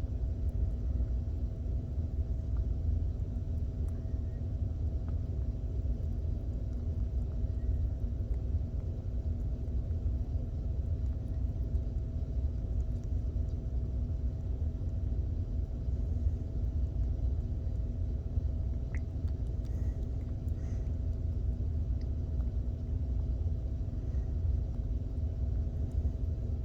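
Steady low rumble with a constant hum, unchanged throughout, with a few faint brief sounds about three-quarters of the way in.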